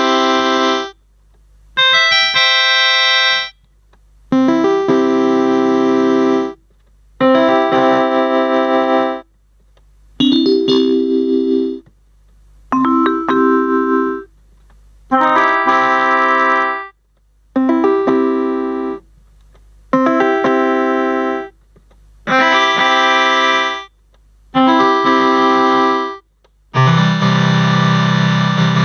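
MK-2117 electronic keyboard played as a string of separate held chords, each lasting about one and a half to two seconds with short silences between. Near the end a fuller, bass-heavy voice starts up.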